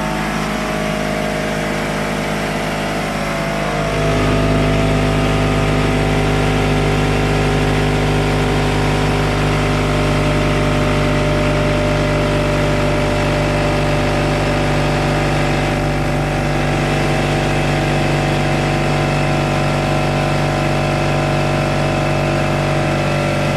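Electric air compressor running loud and steady as it fills its tank, building pressure toward about 50 psi. Its hum steps up a little louder about four seconds in and then holds even.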